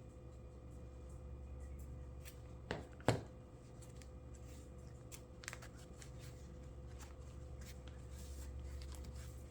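Fabric being handled and cut with scissors: light rustling and snipping clicks, with two sharper clicks about three seconds in, over a steady low hum.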